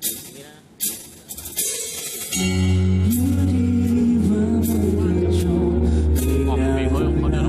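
Live rock band with a violin section playing: the music thins out to a dying chord and a few drum hits, then the full band, with strong bass and sustained strings, comes back in about two and a half seconds in.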